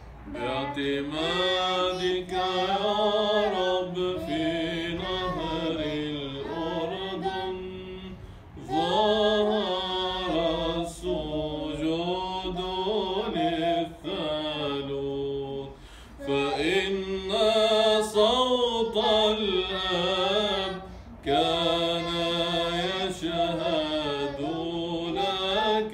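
A man and a boy chanting unaccompanied Byzantine Orthodox chant in Arabic, a slow, melismatic line sung in long phrases with short breaks for breath between them.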